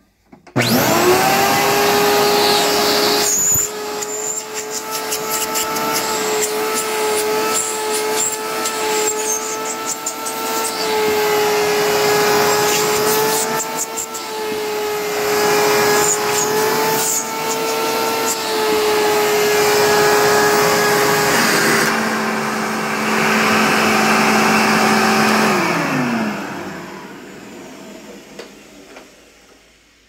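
Dirt Devil Featherlite 12-amp upright vacuum cleaner switched on, its motor running with a steady high whine and scattered clicks, a little quieter after the first few seconds. About 26 seconds in it is switched off and the motor winds down, its pitch falling as it fades.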